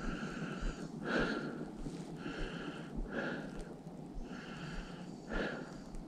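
A man breathing in and out steadily through the microphone, about one breath every two seconds.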